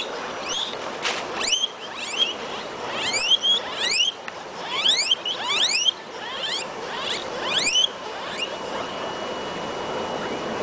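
Young guinea pigs squeaking: many short, high calls that sweep up in pitch, coming in quick runs and stopping about eight seconds in.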